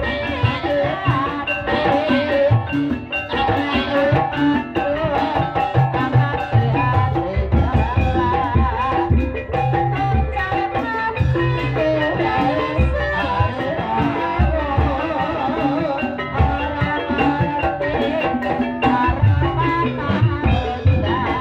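Live music accompanying an ebeg dance: drums with a melody on tuned percussion, playing continuously in a gamelan style.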